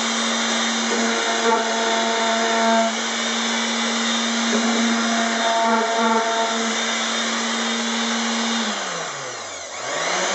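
Electric palm sander with 220-grit paper running steadily over an oak piece, lightly sanding out dust nibs in the first coat of finish before the second coat. About nine seconds in it is switched off and winds down in pitch, then starts up again right at the end.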